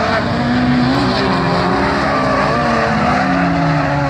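Engines of several small race cars running hard on a dirt-and-tarmac circuit, their overlapping pitches rising and falling as they accelerate and lift, over a steady rush of noise.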